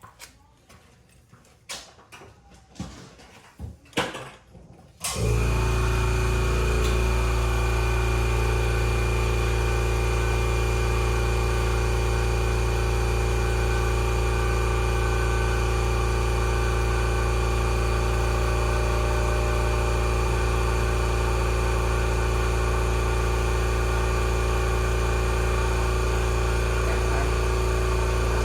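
Air compressor switching on about five seconds in, after a few faint knocks, and then running steadily with a deep hum.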